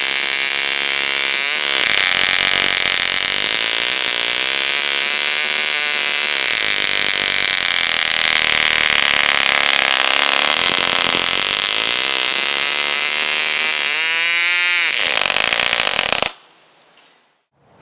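1973 Fox 29 glow-plug model engine turning a 9x6 propeller with no muffler, running very loud at high rpm with its pitch wavering. Near the end it slows sharply as the fuel line is pinched off, then stops suddenly.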